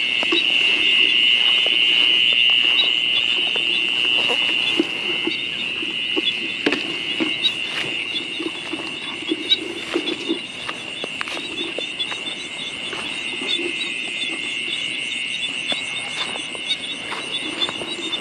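Night chorus of frogs and insects: a steady high-pitched trill over lower, short croaking notes repeated again and again.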